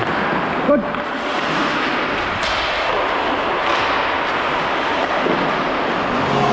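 Ice hockey play heard up close: a steady scraping hiss of skate blades on the ice, with two sharp cracks of sticks hitting the puck about two and a half and nearly four seconds in.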